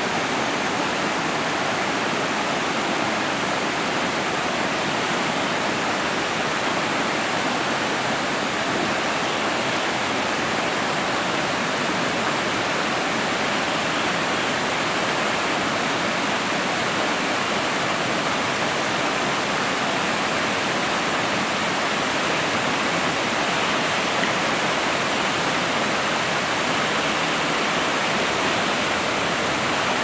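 Shallow rocky stream rushing over stones and small rapids, a steady, unbroken rush of water.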